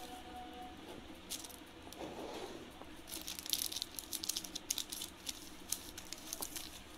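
Crinkling and rustling of a sheet of foam stickers being handled on a table, with a quick run of sharp crackles from about three seconds in until near the end.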